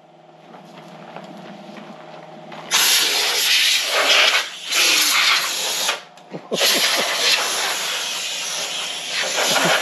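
Compressed air hissing from an air-compressor blow gun, blowing dust off a zero-turn mower's deck in three long blasts that begin about three seconds in.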